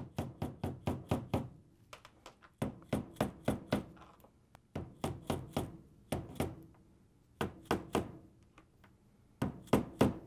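Hammer lightly tapping a wooden dowel in quick runs of three to six taps, about six runs with short pauses between, driving a new upper hinge bearing down into a Frigidaire refrigerator door.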